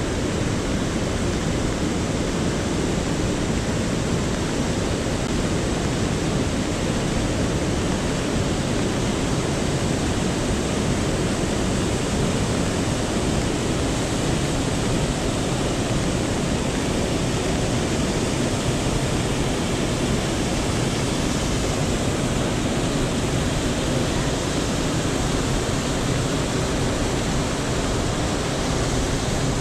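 Steady rushing of water from the stepped cascade at the head of an urban stream and the shallow stone channel below it.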